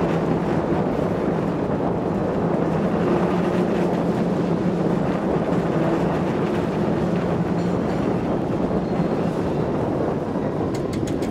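San Francisco cable car running along its track: a steady rumble and rattle from the steel wheels on the rails and the moving cable in the slot beneath the street. A few sharp clicks come near the end.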